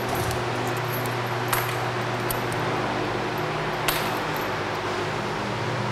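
Steady fan hum, with two small sharp metallic clicks, about a second and a half in and again near four seconds, as a cordless driver is handled.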